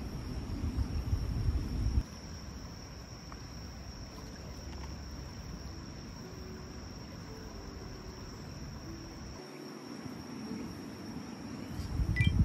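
Insects trilling in one steady high note, over a low steady rushing background. A brief louder noise comes near the end.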